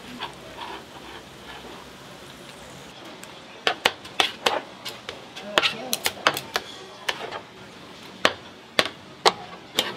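Sharp, irregular taps and knocks of kitchen utensils against a work surface while fish cakes are being made by hand. About a dozen or more quick strikes start around three and a half seconds in, some in quick pairs.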